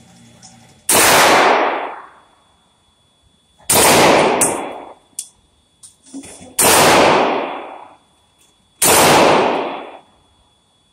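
Kel-Tec Sub2000 Gen 3 carbine firing four single shots a few seconds apart, each very loud, with a long echoing tail off the steel-plated walls of an indoor range booth. A few much fainter sharp clicks sound between the second and third shots.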